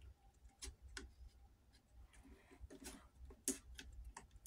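Near silence, broken by about half a dozen faint, light clicks and taps from handling a plastic action figure and its display stand.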